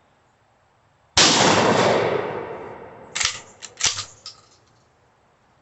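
A single 12-gauge shotgun shot about a second in, ringing out for about two seconds, followed by a few sharp clicks a couple of seconds later.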